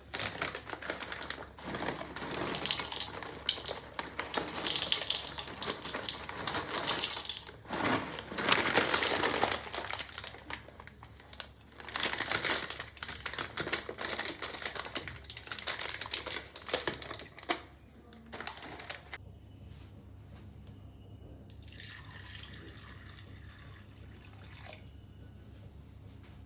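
Water splashing in irregular bursts, mixed with small clicks and handling noises, as at a sink. It quietens about two-thirds of the way through, leaving a fainter stretch of the same noise near the end.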